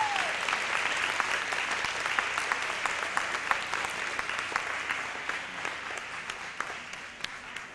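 Audience applause, many hands clapping, fading away steadily as it goes.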